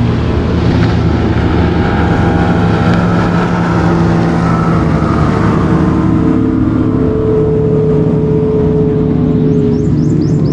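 Motorboat engines running loud and steady as speedboats race past on the river, their tones slowly drifting in pitch.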